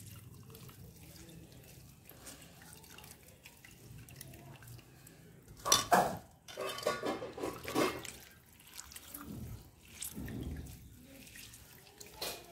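Water dripping and splashing back into a steel pot as handfuls of wet, boiled safflower greens are squeezed by hand. It is faint at first, with a sharp splash about six seconds in and a run of splashes up to about eight seconds, then softer ones.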